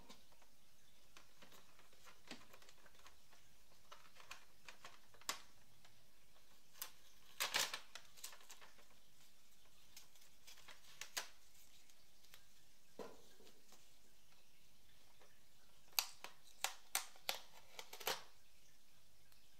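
Scattered light plastic clicks and taps from hands handling an inkjet printer's paper tray cassette while its packing tape and insert are removed. There is a brief cluster of scraping clicks about seven seconds in and a quick run of sharp clicks near the end.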